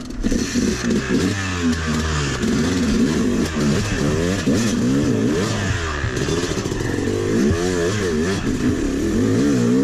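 Yamaha YZ250 two-stroke dirt bike engine revved up and down over and over, in short rising and falling blips of the throttle, as the bike is worked through a deep sand rut.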